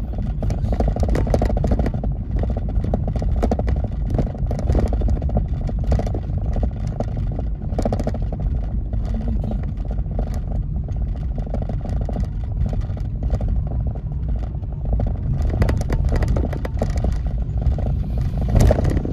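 Car driving along a town street, heard from inside the cabin: a steady low engine and tyre rumble with frequent light rattling clicks, a little louder near the end.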